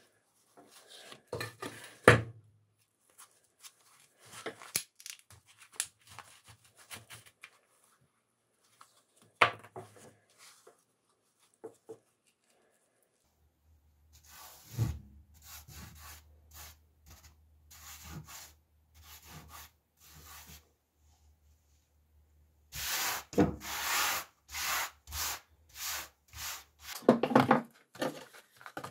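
Scraping and rubbing strokes as rust is shaved off an old rusty machete blade, with a sharp knock about two seconds in and another about ten seconds in. Later comes a gloved hand brushing the loose rust powder across the tabletop, ending in a run of louder rubbing strokes.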